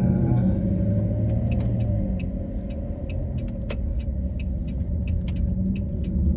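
A car running: a steady low rumble with scattered light clicks.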